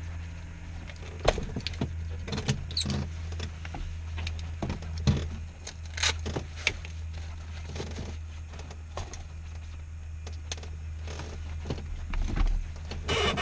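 Scattered clicks, knocks and rustling of paper and gear being handled in a small aircraft cockpit, over a steady low hum, with a louder scraping rustle near the end.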